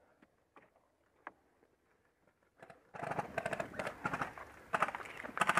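Near silence with a few faint clicks. About three seconds in, rapid rattling clicks start in quick bursts, typical of an airsoft electric rifle (AEG) firing.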